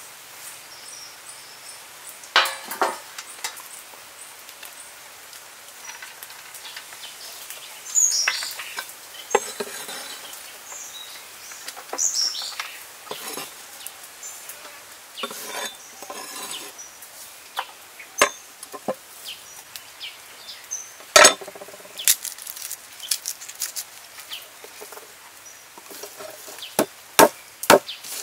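Food-preparation sounds: a knife or cleaver knocking on a wooden chopping board and herbs and a raw duck being handled in a metal tray, in scattered knocks and short rustles. A run of sharp chops comes near the end.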